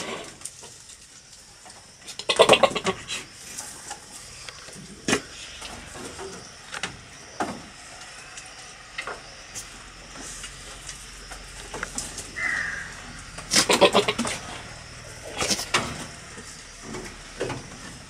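Billy goat making short, rapidly pulsing calls at the nanny goats, once about two seconds in and twice more in the second half. A few short sharp knocks come in between.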